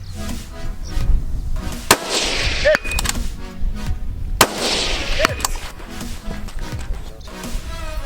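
Two rifle shots, sharp cracks about two and a half seconds apart, each followed by a long echoing decay, over background music.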